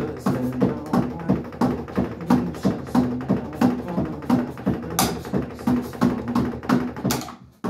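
Drumsticks striking the pads of an electronic drum kit in a steady beat, heard as unamplified thuds and taps, with two brighter hits about five and seven seconds in. It cuts off abruptly near the end.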